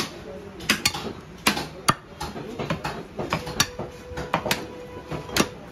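Heavy cleaver chopping beef on a round wooden log chopping block: sharp chops, about two a second in an uneven rhythm.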